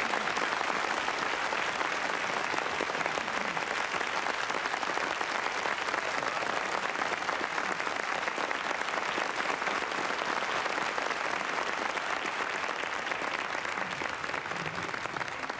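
A large audience applauding steadily, many hands clapping together at the end of an orchestral performance; the applause eases off slightly near the end.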